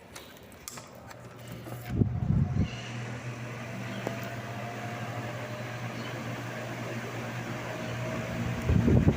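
Tron 60 cm wall fan starting up about a second and a half in and then running steadily: a motor hum under a rush of moving air. A few low thumps come about two seconds in.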